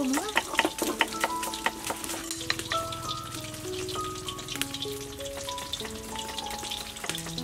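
Food sizzling as it fries in a pan over a wood fire, with scattered light clicks, under background music of slow held notes. A quick run of sharp clicks in the first second and a half fits a knife chopping shallots on a wooden board.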